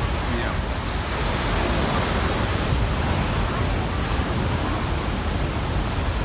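Large ground-swell waves breaking and surging over a sea wall: a loud, steady rush of churning surf, with wind rumbling on the microphone.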